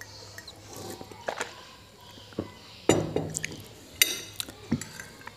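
Water being swallowed in gulps from a glass mug, then a short sound from the throat about three seconds in. About four seconds in there is a sharp, ringing clink of glass or cutlery on a ceramic plate, followed by a few lighter clicks.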